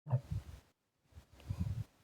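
A person's stomach gurgling in two short, low bursts: one at the very start and one about a second in.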